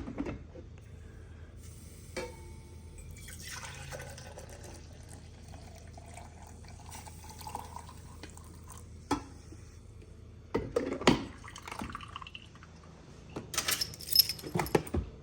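Water dripping and running, with scattered clicks and knocks over a low steady hum; the knocks come in two clusters, around the middle and near the end.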